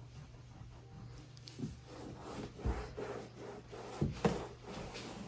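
Scrubbing and rubbing against a wall with a few light knocks, over a low steady hum.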